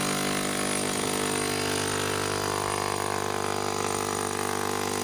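Bosch hammer drill with a diamond core bit running steadily as it cuts a 2-inch hole through the brick veneer and block foundation wall.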